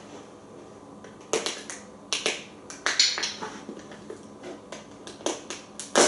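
A run of sharp, irregular clicks and taps, about fifteen of them, starting about a second in and bunched most thickly around the middle.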